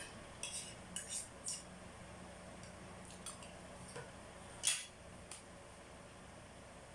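Cutlery clinking and scraping against a plate while eating: a few sharp taps in the first second and a half, fainter ones midway, and the loudest clink about two-thirds of the way through.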